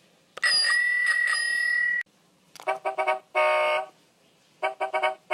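Bicycle bell ringing: one long ring with a clear high tone, then two shorter rings, each a quick run of strikes followed by a ringing tone.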